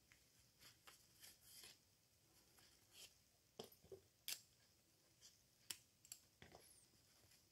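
Near silence with faint, scattered light clicks and short rustles from handling yarn and a tapestry needle while the strap's sewing is knotted off.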